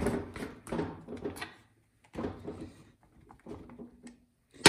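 Wrench working a chainsaw's tight bar nuts loose: scattered short clicks and scrapes of metal on metal with brief pauses, then a sharp clank near the end.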